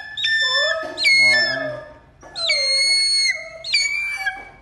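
Eagle giving a series of about four high, thin whistled calls. Each call opens with a quick drop in pitch and then holds steady; the third is the longest.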